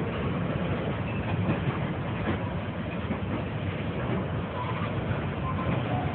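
Norfolk Southern freight train's tank cars and covered hoppers rolling past close by: a steady noise of wheels running on the rails, with a few faint, brief high tones.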